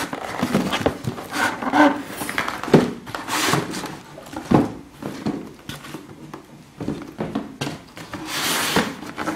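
Cardboard shoebox and its paper wrapping being handled as the sneakers are taken out: rustling and scraping with irregular light knocks.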